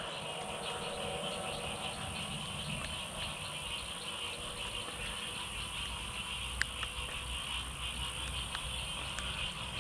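Steady high-pitched chorus of insects, a fast pulsing trill that runs unbroken, with a couple of faint clicks late on.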